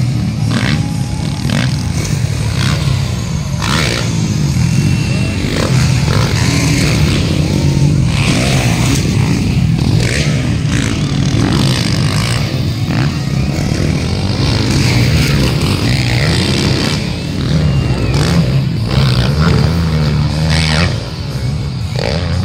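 Motocross bikes racing round a dirt track, their engines revving up and easing off as the riders take the jumps.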